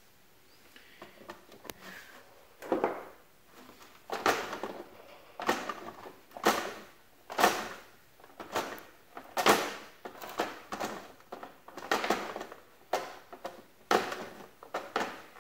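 Scissors cutting into the plastic wall of a watertight box to trim a drilled cable hole: a series of short snips about once a second, starting a few seconds in.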